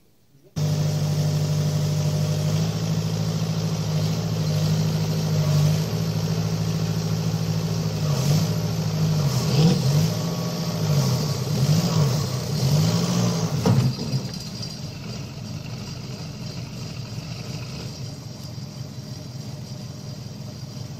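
Atek 4321B wheeled excavator's diesel engine running hard, its pitch rising and falling several times as it revs under load, then settling to a lower, steadier sound about 14 seconds in.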